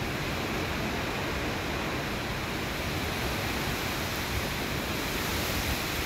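Storm of strong wind and heavy rain: a steady rushing noise with no let-up.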